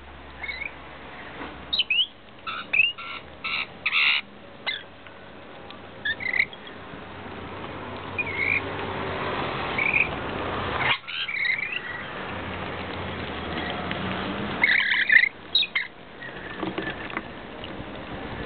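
A flock of rainbow lorikeets chattering while feeding, with short shrill screeches and chirps; the calls bunch into louder clusters about two to four seconds in and again near the end.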